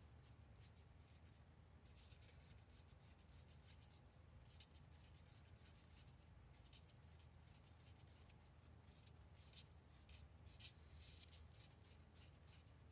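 Faint, irregular scraping and light ticking of a stir stick mixing pearl white mica powder into resin in a mixing cup, over a low steady hum.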